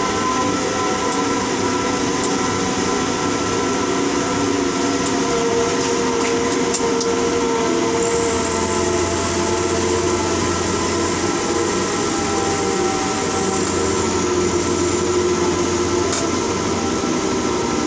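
Tower crane's drive motors humming steadily, heard from inside the operator's cab while the concrete bucket is lowered; a deeper hum joins about eight seconds in as the crane slews and fades out shortly before the end.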